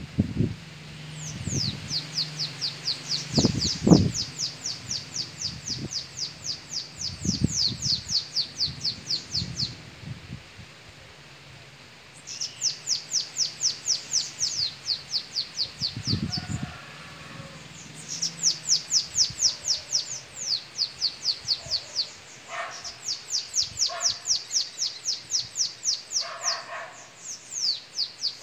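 Caged bananaquits singing in a song contest: bouts of rapid, high, down-slurred notes, about four a second, each bout lasting several seconds with short pauses between. A few dull low thumps come in the first eight seconds, the loudest about four seconds in, and another near sixteen seconds.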